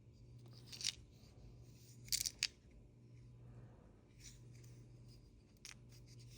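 Light metal clicks and scrapes from handling a Zippo Ziplight's case and insert, with a sharper cluster of clicks about two seconds in and a few more near the end, over a low steady hum.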